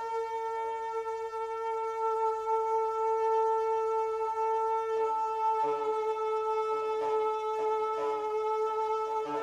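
Shofar (ram's horn) sounding one long, steady blast at a single pitch, with a slight dip in pitch about halfway through.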